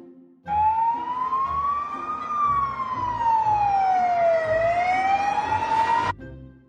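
Ambulance siren wailing in one slow sweep: it rises in pitch, falls over a couple of seconds, then rises again before cutting off about six seconds in.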